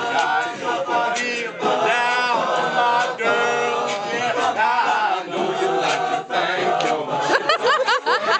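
Group of men singing and chanting together a cappella, several voices wavering in pitch, with voices sliding upward in quick rising whoops near the end.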